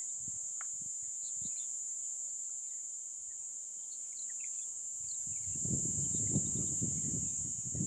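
Steady high-pitched drone of insects (crickets or cicadas) in the bush, with scattered short bird chirps. From about two-thirds of the way in, a low, irregular rustling and crackling starts and becomes the loudest sound.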